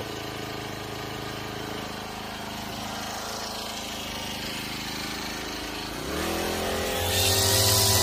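Brush cutter engine running steadily at idle, then revved up about six seconds in to a higher, louder steady note as the nylon line head spins up. Near the end a hiss joins it as the line starts cutting grass.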